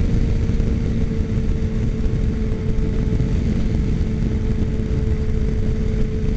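Suzuki Katana 600's inline-four engine running steadily at freeway cruising speed, with a steady engine hum over heavy wind rumble on a helmet-mounted microphone.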